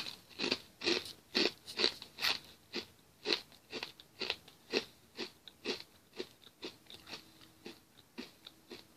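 A person chewing crunchy cocoa-flavoured pita chips, with about two crisp crunches a second that grow fainter as the chip breaks down.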